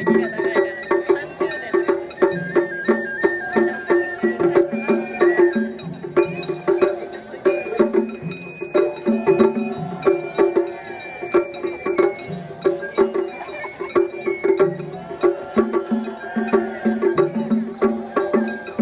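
Japanese traditional festival music: a high melody that steps from note to note over a steady low pulsing note, with quick, sharp wooden clicks of percussion throughout.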